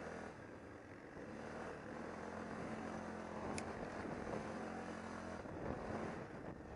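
ATV engine running steadily while the quad rides along a dirt and gravel road, with a single short click about three and a half seconds in.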